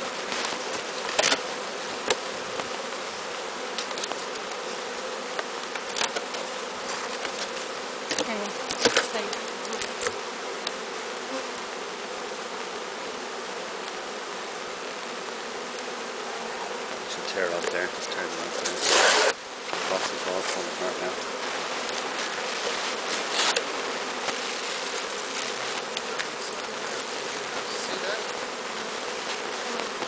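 Honey bee swarm buzzing: a dense, steady hum of many bees as they crawl over a sheet into a new hive. Scattered sharp ticks run through it, and a brief loud rush of noise comes about two-thirds of the way through.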